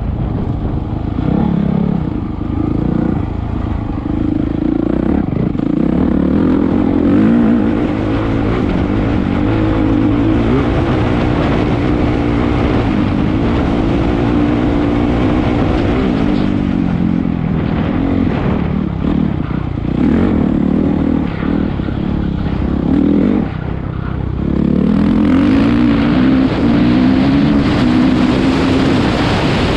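Enduro dirt bike engine under hard throttle, its pitch rising and falling over and over as the rider accelerates and shifts, with a brief dip before it pulls hard again near the end. The engine is heard from the rider's helmet camera, with wind rushing over the microphone.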